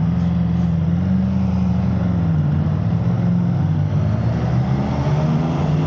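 Motorcycle engine running steadily on the open road, its note dipping a little in the middle and picking up again, with wind rushing over the microphone.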